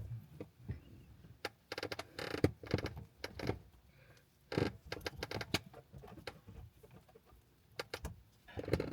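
Irregular clicks, taps and rustles of hands handling small parts, with a few sharper knocks.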